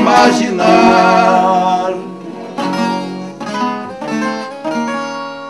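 Two men singing a música raiz (caipira) duet in Portuguese, accompanied by two acoustic guitars. They hold a long sung note on "imaginar", and about two seconds in the voices drop back, leaving the plucked guitar notes ringing out more softly.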